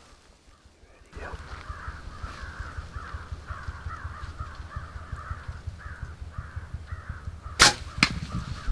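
Birds calling over and over in harsh, caw-like calls, with a low rumble underneath. Two sharp snaps come close together near the end.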